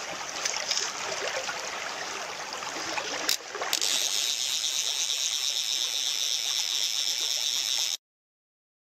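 Small river current rushing and rippling past, with a brief knock about three and a half seconds in, after which the rush sounds brighter. It cuts off suddenly near the end.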